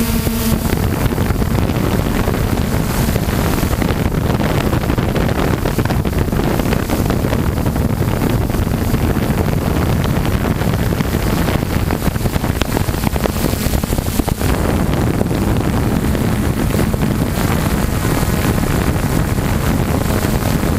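Electric radio-controlled helicopter in forward flight, heard from its onboard camera: steady wind rushing over the microphone with the motor and rotor noise beneath it. The motor's steady hum comes through a little more clearly near the end.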